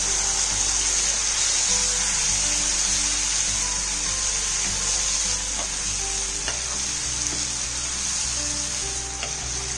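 Boiled goat intestines and their cooking liquid sizzling in a hot frying pan of masala, stirred with a wooden spatula that knocks lightly against the pan a few times.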